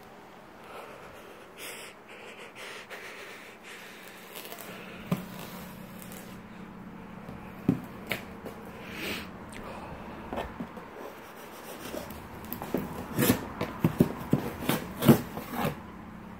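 Cardboard shipping box being handled on a wooden desk: rubbing and scraping of the cardboard with a few scattered knocks, then a quick run of sharp knocks and taps on the box in the last few seconds.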